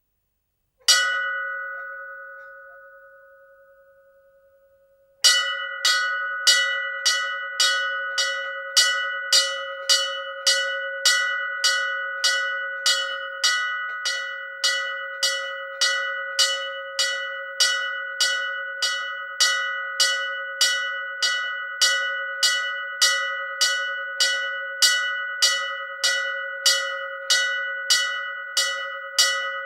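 Hindu temple bell struck once about a second in and left to ring and die away, then rung again and again at a steady pace of about two strikes a second, each strike ringing into the next.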